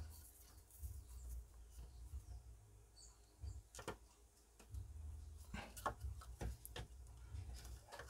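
Faint, scattered clicks and light rustling from handling a plastic soundbar cover and pushing a small wire connector into its circuit board, over a low steady hum.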